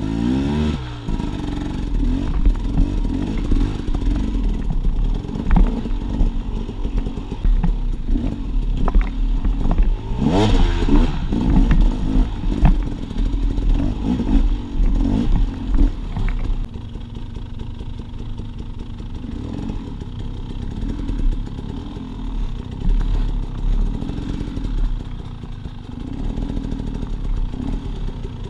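Dirt bike engine revving in short bursts at low speed, its pitch rising and falling, with a sharp rev about ten seconds in. Scattered knocks and clatter as the bike climbs over rock ledges.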